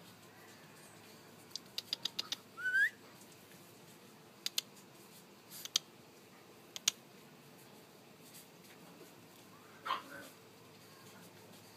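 Seven-week-old puppy giving a short, high, rising whine about three seconds in, with a second brief cry near the end. Scattered light clicks and rustles come from its moving about.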